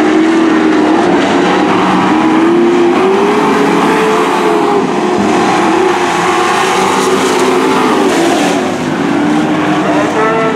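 A pack of dirt-track stock trucks racing at full throttle, several engines sounding together, their notes climbing and dipping in pitch as they accelerate and back off through the turns.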